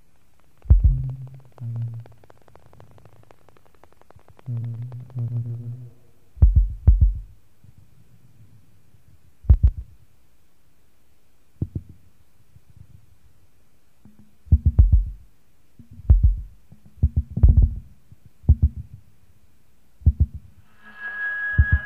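Noise music from a cassette tape: irregular deep, low thuds with clicks on top, spaced a second or more apart, with short low droning tones between some of them. Near the end a steady high whine with a layered buzz comes in.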